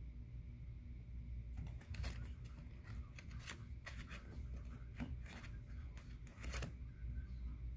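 Handling noise from the green plastic interchangeable grip panels of an HK VP9 pistol and its hard plastic case: scattered light clicks and taps as the pieces are picked up and set down in the foam insert, over a low steady hum.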